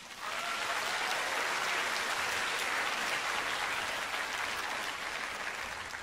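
Audience applause, starting suddenly and holding steady as a dense patter of many hands clapping.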